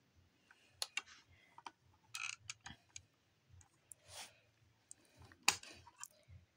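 Faint scattered clicks and light plastic knocks as a DVD is lifted off a portable DVD player's spindle and handled, with a brief rustle about four seconds in and the loudest click about five and a half seconds in.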